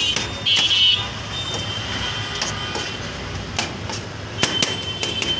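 Large knife chopping shawarma chicken on a steel tray: irregular sharp clacks of the blade striking the metal, with short high metallic scraping rings, over a steady background din.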